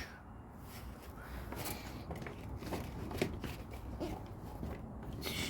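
LEGO bricks being handled during a build: a scatter of small, light plastic clicks and soft rustles, a few seconds apart.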